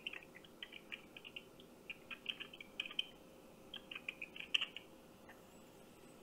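Faint computer keyboard typing heard through a phone's speaker, thin and tinny, in irregular bursts of keystrokes that stop about five seconds in.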